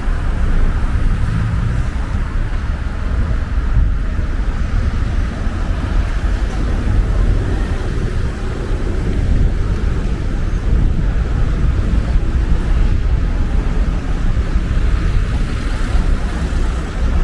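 Steady city street noise dominated by a deep, fluctuating low rumble from traffic, with no single event standing out.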